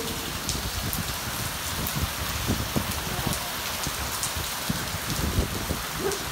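Rain falling steadily: an even hiss with single drops ticking close by.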